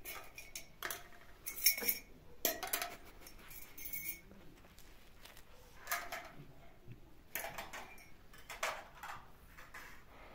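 Tableware clinking: spoons, glasses and dishes knocked together about a dozen times at irregular intervals, each a short sharp clink with a brief ring, as tea things are handled.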